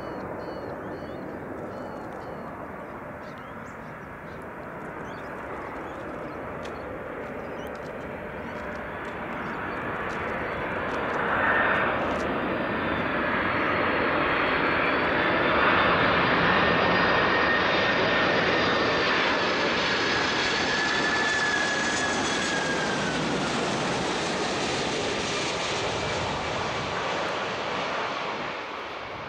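Boeing 747-400ER on landing approach: the jet roar of its four engines grows louder as it flies in, with a high whine over the rush. Past the middle the whine slides down in pitch as the jet passes and the roar eases off.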